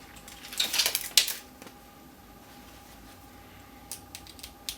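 Small screws and metal laptop-screen parts being handled: a quick cluster of clicking and clattering about a second in, then a few light clicks near the end.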